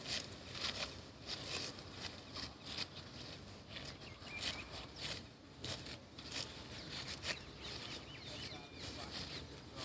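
Rice stalks being cut and gathered by hand: dry, crisp rustling strokes, repeated irregularly about once a second.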